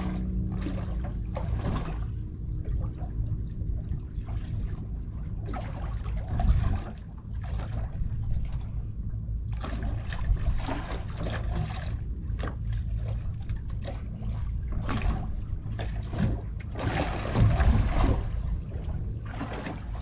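Water lapping and slapping in irregular splashes against the hull of a small drifting boat, over a steady low rumble.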